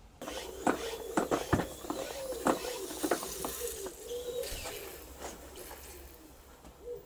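Hot water running through a filler tube into a small model steam boiler, gurgling with many small clicks and a wavering mid-pitched tone. It starts suddenly and stops near the end as the boiler fills.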